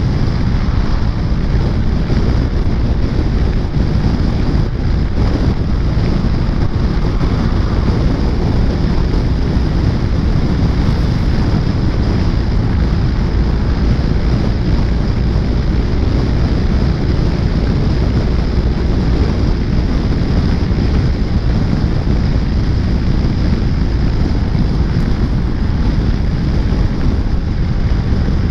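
Steady wind buffeting the microphone of a scooter rider at road speed, with the scooter's engine and tyre noise beneath it.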